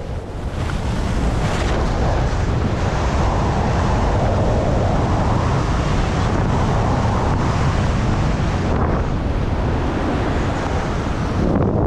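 Wind buffeting an action camera's microphone while skiing fast, with skis hissing and scraping over packed, groomed snow. The rush of noise is loud and steady throughout.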